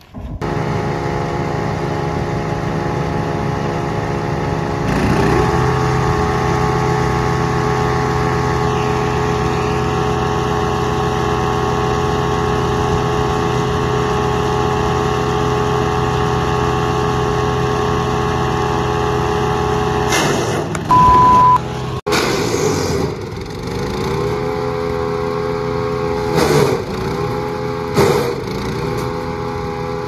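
Jonco MC100 wood chipper's petrol engine running, rising to full speed about five seconds in. In the last third the engine dips and recovers several times as branches are fed in and chipped. A short steady beep sounds about two-thirds through.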